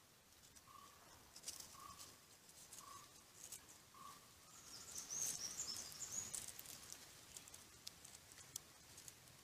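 Faint birdsong: a short call repeated about once a second for the first four seconds, then a brief high warbling chirp around the middle, with scattered faint ticks.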